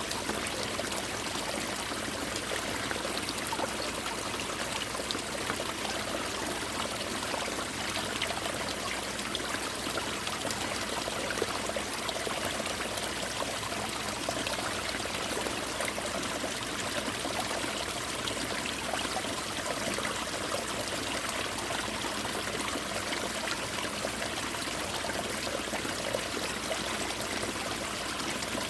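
Winter mountain stream pouring down onto ice-covered rocks like rain: a steady rush of running water flecked with many small splashes and drips.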